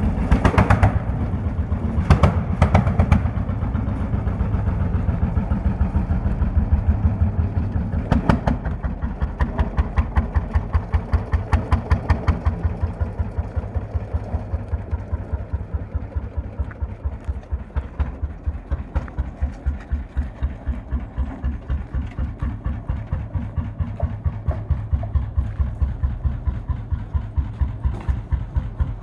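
Lanz Bulldog tractor's single-cylinder two-stroke hot-bulb engine running under way, its exhaust beating in an even rhythm. There are a few louder bursts in the first nine seconds.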